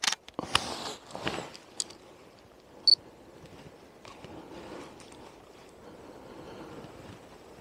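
A digital camera's short high beep, the autofocus confirmation tone, about three seconds in. Before it come about a second and a half of rustling handling noise, opening with a sharp click and with another click just before the beep. The rest is faint outdoor quiet.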